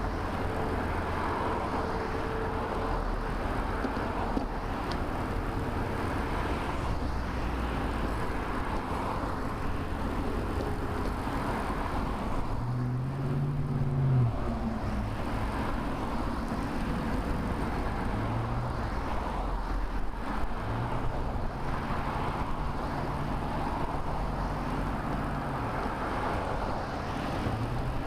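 Motor traffic passing on a busy multi-lane road: a steady rush of tyre and engine noise, with low engine hums from passing vehicles swelling and fading several times.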